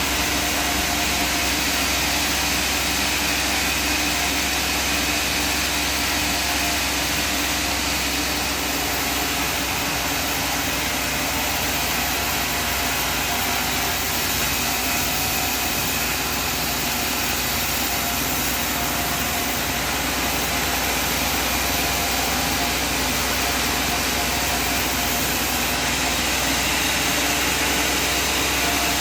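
Sawmill machinery running steadily: a constant motor hum with a dense hiss over it that does not change.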